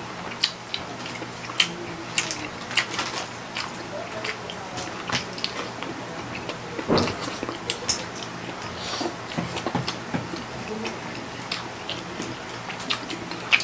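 Close-up eating sounds of two people chewing and slurping spicy instant noodles and sausages: many short wet mouth clicks and smacks, with one longer, louder slurp about seven seconds in.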